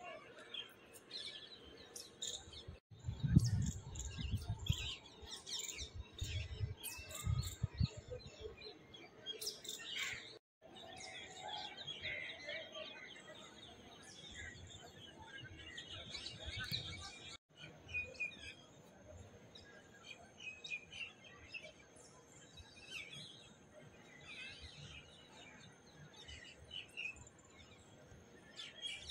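Many small birds chirping, short high calls scattered throughout. Between about three and eight seconds in, several short bursts of low rumble are the loudest sound.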